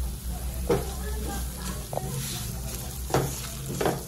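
Semolina sizzling in hot ghee in a nonstick kadhai as it is roasted, with a silicone spatula stirring and scraping it across the pan in about four strokes.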